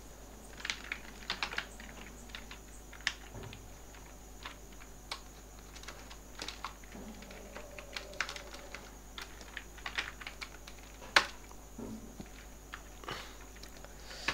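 Computer keyboard typing: scattered, irregular keystrokes with pauses between short runs, and one louder click about eleven seconds in.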